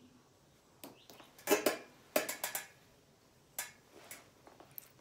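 Irregular light clicks and knocks, as of small hard objects being handled, with the loudest clustered about one and a half and two and a half seconds in.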